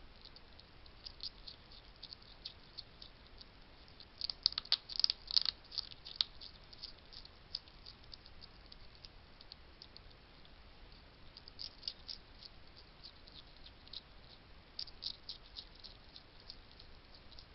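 Wild hedgehog crunching food: irregular small crunches and clicks, busiest about four to six seconds in, with further short flurries later.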